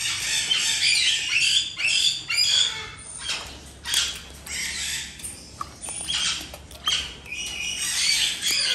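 Blue-and-gold macaws squawking: a dense run of harsh calls for about three seconds, then shorter single squawks roughly a second apart.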